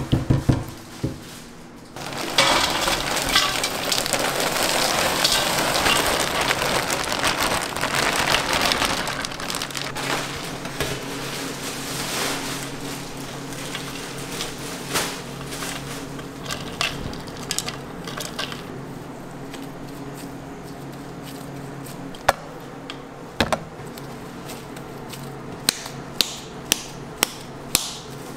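Gloved hands kneading coarsely ground raw beef in a large steel bowl: a dense crushing, squishing noise, loudest in the first several seconds and thinning out, then scattered light clicks and taps as the meat is pulled off and shaped into balls.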